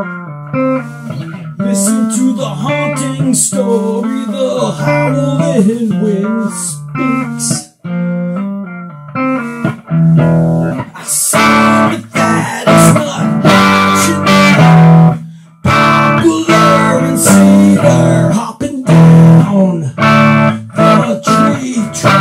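Guitar music: single picked notes with string bends, then louder strummed chords from about ten seconds in.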